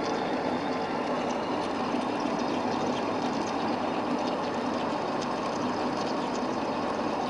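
1B61 lathe taking a heavy 10 mm-per-pass cut in a St35 steel blank at 250 rpm and 0.15 feed: steady running of the motor and gearbox with the cutting noise, and faint clicks now and then.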